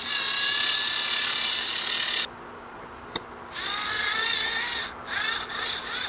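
Small cordless electric screwdriver driving the GFCI outlet's mounting screws into the electrical box. It whirs in runs: one of about two seconds, a shorter one halfway through, and two short bursts near the end.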